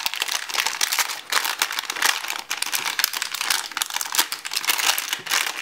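Clear plastic earphone bag crinkling in the hands as it is opened: a dense, continuous run of crackles.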